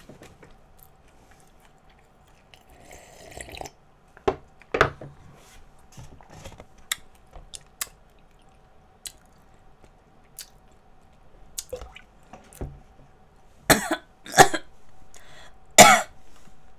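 A woman coughing into her fist: two coughs about four seconds in, then a louder run of three near the end.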